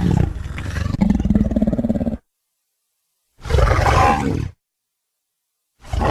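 Monster roar sound effects. A roar trails into a low, pulsing growl and cuts off about two seconds in. A shorter roar follows about a second later, and another begins near the end, each separated by dead silence.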